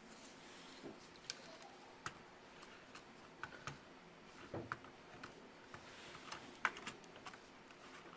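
Scattered light clicks and taps, a dozen or so at uneven spacing, from the plastic body shell of an MTH model diesel locomotive being handled and fitted back onto its chassis.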